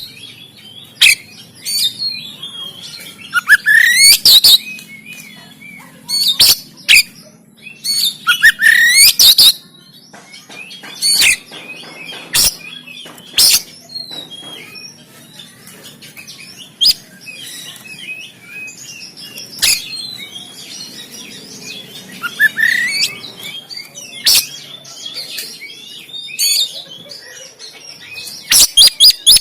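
Oriental magpie-robin (kacer) singing in loud bursts of harsh, sharp notes mixed with rising whistled sweeps, with short pauses between phrases.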